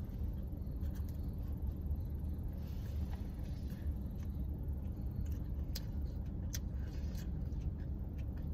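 Steady low rumble of a car idling, heard inside the cabin, with a few faint wet mouth clicks from chewing a mouthful of donut.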